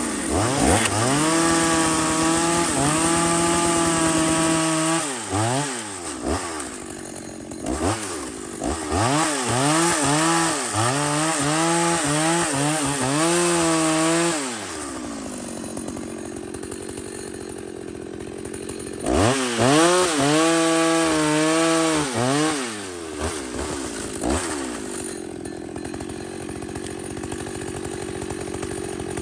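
Two-stroke chainsaw running and being revved: it holds high revs, then the throttle is blipped in quick rises and falls, easing back to a lower idle between runs of revving.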